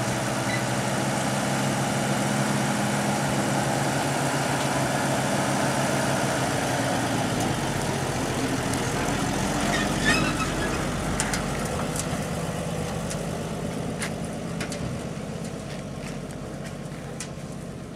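Old 1952 GMC truck engine idling steadily, then the truck pulls away and drives off, its engine sound fading as it moves into the distance. A brief sharp knock comes about ten seconds in.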